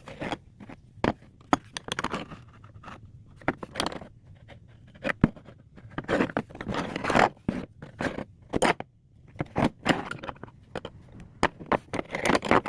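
Old wood-handled screwdrivers being handled: irregular clicks and knocks with short bursts of scraping as they are picked up and shifted against each other and a surface.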